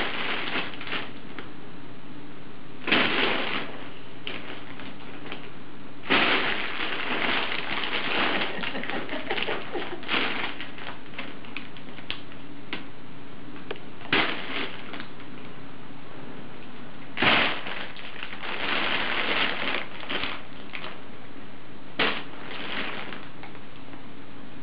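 Cat crinkle tube crackling as a cat scrambles and pounces inside it: its lining crinkles in short bursts and longer spells of crackling, with quieter gaps between.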